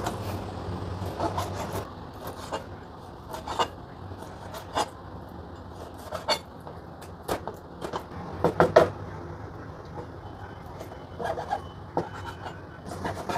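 Meat cleaver chopping raw pork into chunks on a plastic cutting board: irregular knocks of the blade striking the board, a second or so apart, with a quick cluster of harder strikes about nine seconds in.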